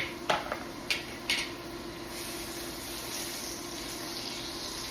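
Butter sizzling in a pan of hot olive oil and rendered bacon fat: a steady hiss that grows brighter about two seconds in, with four sharp clicks in the first second and a half.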